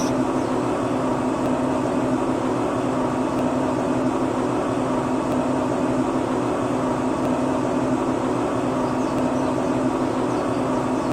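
A small electric motor running steadily with an even hum.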